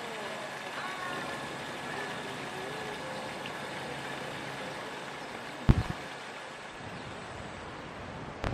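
Steady outdoor background noise, with a few faint gliding calls in the first couple of seconds and one sharp knock about six seconds in.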